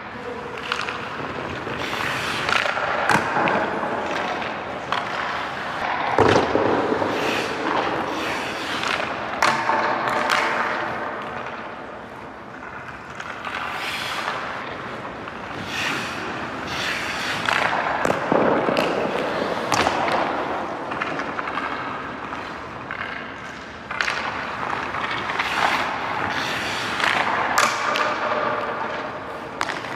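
Ice hockey shooting practice: repeated sharp cracks of sticks hitting pucks and pucks striking goalie pads and boards, between stretches of skate blades scraping the ice, all echoing in an indoor rink.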